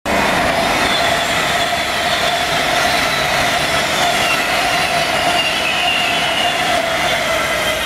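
Virgin Trains Class 390 Pendolino electric train passing close by: a loud, steady rush of wheels on rail with a thin whine that drifts slightly lower as the carriages go by.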